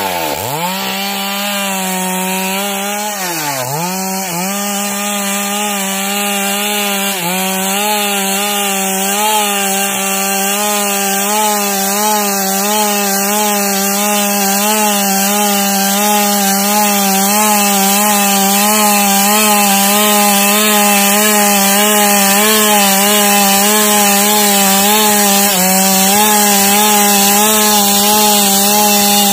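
Stihl chainsaw ripping a log lengthwise, running at high revs under load. The engine note dips and recovers sharply near the start and again about three seconds in, then holds steady for the rest of the cut.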